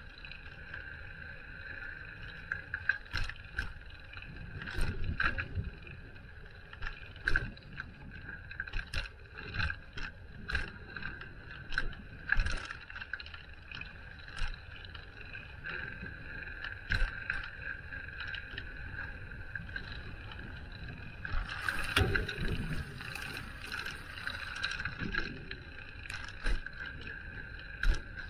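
Ride noise from a moving bicycle: a steady whir with frequent sharp knocks and rattles as it rolls over bumps. A louder, hissier stretch comes a little over two-thirds of the way through.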